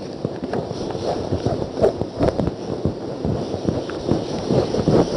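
Whiteboard eraser rubbing across the board in quick, irregular strokes, wiping off a drawing.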